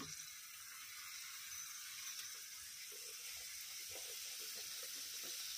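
Green pea kachori deep-frying in hot refined oil in a kadhai: a steady sizzle, with faint crackling from about three seconds in.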